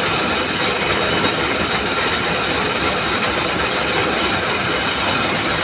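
Textile mill machinery running: a loud, steady, dense mechanical clatter.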